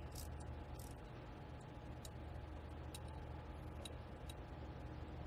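Socket wrench running down the bolts of an oil manifold tube, giving light metallic ticks about once a second over a steady low hum.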